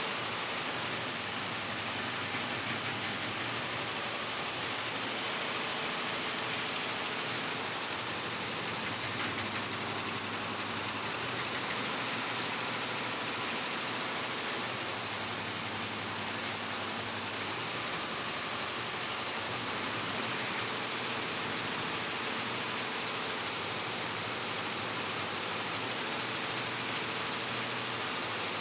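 Industrial machine running steadily: a continuous mechanical hum with a dense hiss over it that does not change.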